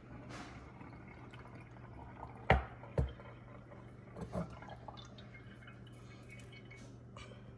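Fresh goat milk dripping through a filter into a bottle. Two sharp knocks come about two and a half and three seconds in, and two softer ones follow a little later.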